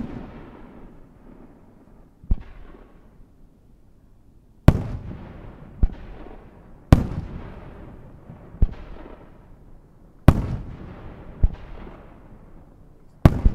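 Aerial firework shells bursting in the sky, about eight loud bangs a second or two apart, each one trailing off in a rolling echo.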